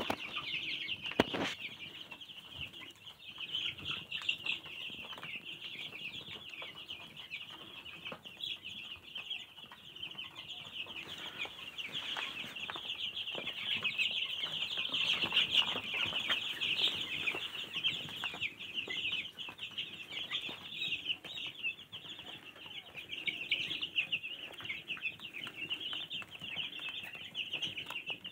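A pen of dozens of young chicks, many of them meat-bird chicks, peeping all at once in a dense, continuous high chatter of overlapping short cheeps. There is a single sharp knock about a second in.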